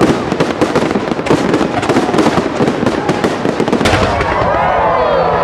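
Fireworks display: a dense crackle of many rapid small pops. About four seconds in, a low rumble and many overlapping whistles gliding in pitch take over.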